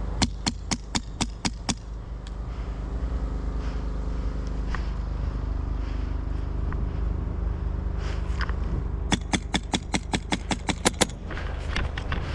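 HPA airsoft rifle firing rapid semi-automatic shots, each a sharp crack. There is a string of about seven shots at the start, then a faster run of about a dozen shots near the end, over a steady low hum.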